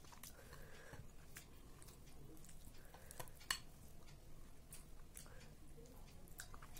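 Faint mouth sounds of eating chicken off the bone with the fingers: soft chewing and sucking with scattered small clicks, one sharper click about three and a half seconds in.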